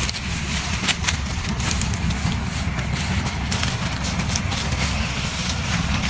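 An engine running steadily with a low rumble, with scattered crackles and rustles of dry corn leaves and stalks.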